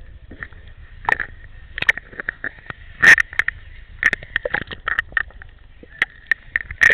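Pool water splashing and sloshing around a waterproof camera held half in, half out of the water, with irregular sharp clicks and knocks, the loudest about three seconds in.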